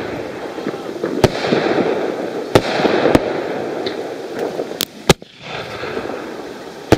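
Consumer 1.75-inch (50 mm) fireworks shells from a Pyrostar Navarone set, about six sharp bangs from launches and breaks at uneven intervals, over a continuous crackling hiss of burning stars and other fireworks.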